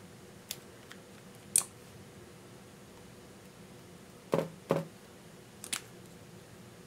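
Handling of a plastic lip tint tube and its cap: scattered small clicks and taps, with one sharp click about a second and a half in and two duller knocks in quick succession past the middle.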